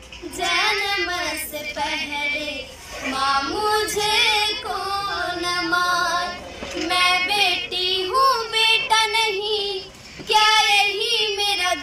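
A high voice singing a song in long, wavering melodic phrases, with short breaks between phrases.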